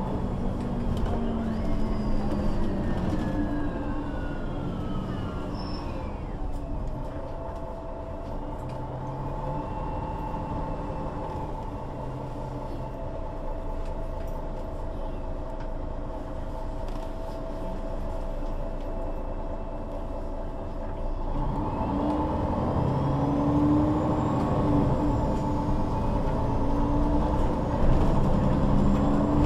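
Onboard sound of a MAN NL 263 city bus's diesel engine and automatic drivetrain. It slows down around six seconds in, runs steadily at low revs through the middle, then pulls away again from about twenty seconds in, getting louder. Rising and falling whines from the drivetrain run alongside the engine.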